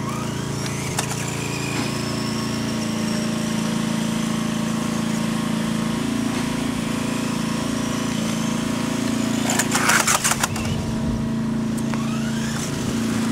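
RC car's electric 540 motor whining, rising and falling in pitch as it drives, over a steady low hum. About ten seconds in comes a short burst of loud knocks and rattles.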